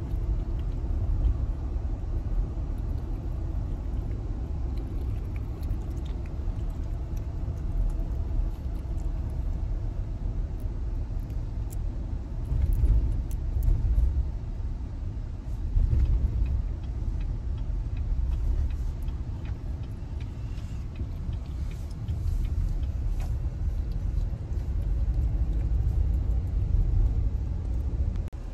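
Road and wind rumble inside a moving car, a steady low noise that swells a few times.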